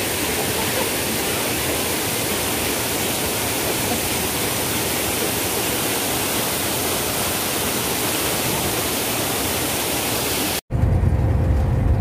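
Waterfall's steady, even rush of falling water. Near the end it cuts off abruptly and is replaced by the low engine and road rumble inside a moving vehicle.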